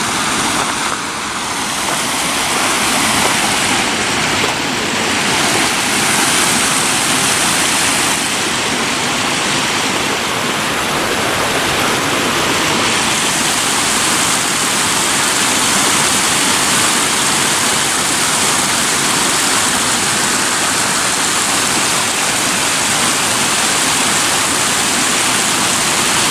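Stream water rushing and splashing over a shallow stone ford: a steady, even rush.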